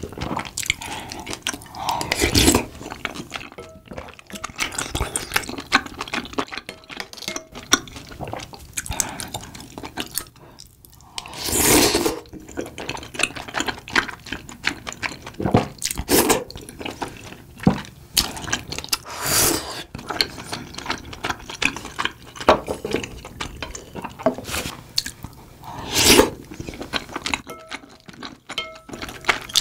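Close-miked eating sounds: chewing soupy tteokbokki rice cakes, with wet mouth clicks and several longer slurps of broth from a spoon.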